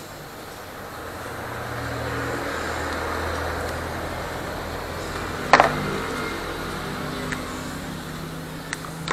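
A kitchen knife striking a plastic cutting board once, sharply, a little past halfway, with a few light ticks of string beans being handled afterwards. Behind it a low background rumble swells and then fades.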